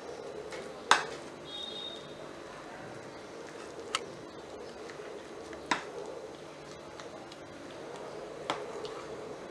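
Metal spoon stirring a wet gram-flour batter in a plastic bowl, with four sharp clicks of the spoon against the bowl. The loudest click comes about a second in.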